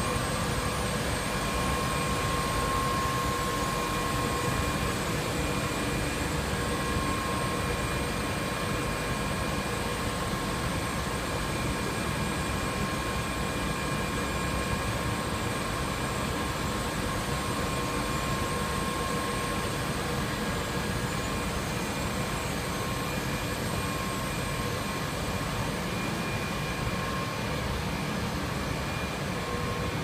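Steady drone of running factory machinery and ventilation, with a few faint, steady whining tones over it.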